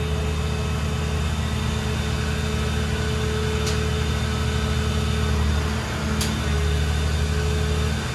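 Hitachi ZX670LCR-3 long-reach excavator's Isuzu diesel engine running steadily under hydraulic load as the boom and stick are lowered, with a steady whine above the engine note. Two sharp clicks come about two and a half seconds apart, and the engine sound dips briefly about six seconds in.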